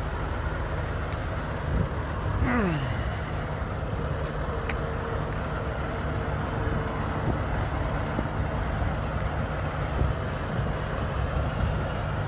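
Steady low rumble of idling diesel semi-trucks in a truck parking lot. A falling whine sweeps from high to low about two and a half seconds in, and a steady hum sounds for a few seconds in the middle.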